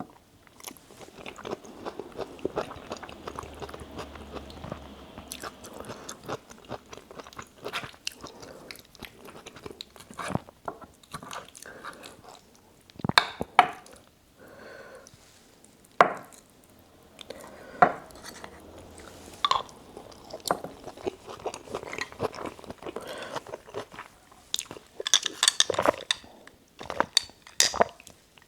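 Close-miked chewing of spicy chicken dakgalbi and rice: steady wet mouth sounds and soft smacks, broken by several sharp, louder clicks.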